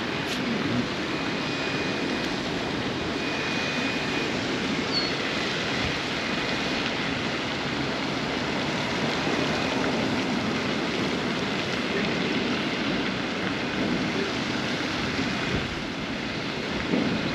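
Steady outdoor rushing noise, even and unbroken.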